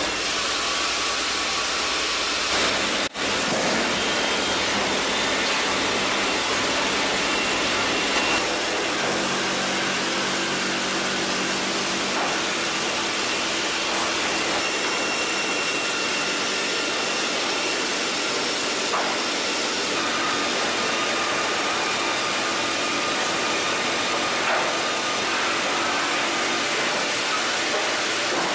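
Steady, loud machine noise of an automated sawmill line running, with band saws cutting logs and chain conveyors carrying sawn boards. There is a brief gap about three seconds in.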